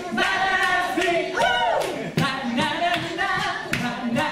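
A group of voices singing a cappella, with hand claps along to it.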